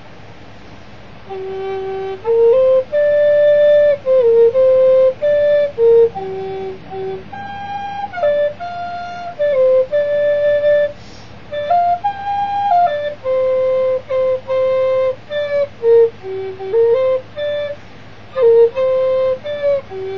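Solo flute playing a slow melody, one note at a time, in short phrases of held notes that step up and down, starting about a second in.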